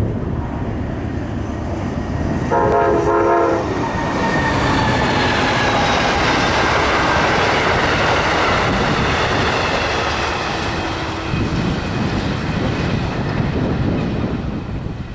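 Amtrak passenger train with a GE P42DC diesel locomotive passing at speed. A horn sounds once for about a second, about two and a half seconds in. Then the locomotive and coaches go by with a loud, steady rush of engine and wheel noise that eases off near the end.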